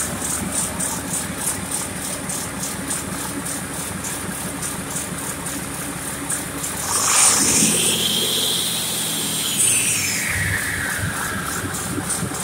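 Mack MP7 10.8-litre six-cylinder diesel idling on a test stand. About seven seconds in it is revved: the sound gets louder and a turbocharger whine rises, then falls slowly over several seconds as the engine settles back to idle.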